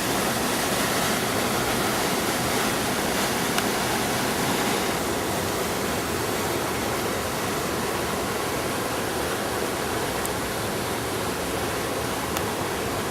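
Steady rush of fast-flowing water, like a waterfall or rapids, an even noise with no breaks.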